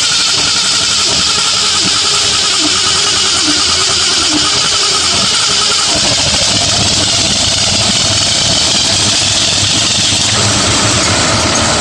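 Carbureted engine fitted with a Holley four-barrel carburetor, running just after being fired up. Its sound changes about six seconds in and again near ten seconds.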